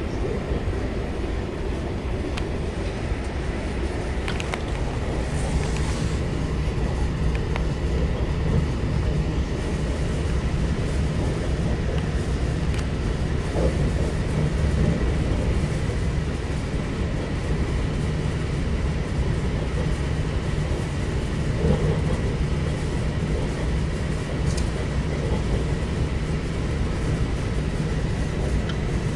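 Lastochka (Siemens Desiro RUS) electric train running at high speed, about 155 km/h, heard from inside the carriage: a steady rolling rumble with a low hum and a few faint ticks.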